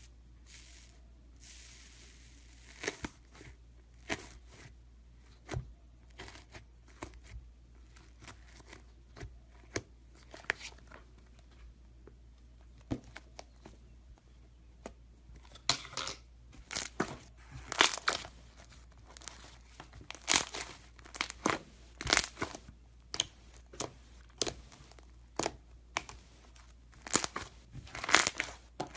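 Crunchy iceberg slime being pressed and squeezed, its dried crust crackling and crunching in short sharp bursts. The crackles are sparse at first and come thick and loud in the second half.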